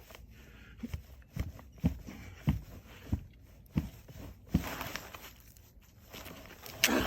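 Footsteps on soft ground, about seven steady steps, followed by rustling and crunching of leaves and debris, loudest near the end.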